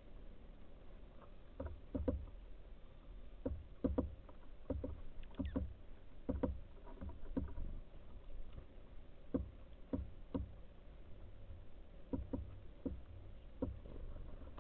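Irregular soft knocks and taps at a bird feeder, one at a time at uneven intervals, each with a dull low thud.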